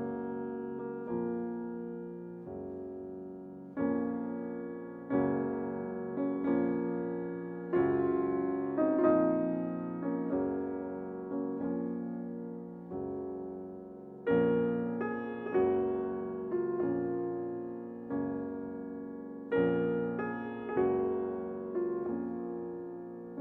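Background music: slow piano chords, each struck and left to fade, about one every second and a half.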